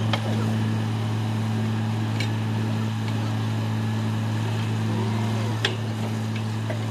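Truck-mounted borewell drilling rig running steadily with a deep, even drone, with a few sharp clicks over it.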